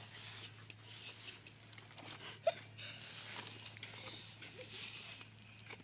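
Soft rustling of freshly cut green leaves being gathered by hand and dropped into a plastic bucket, in uneven handfuls with small scattered taps, over a faint steady low hum.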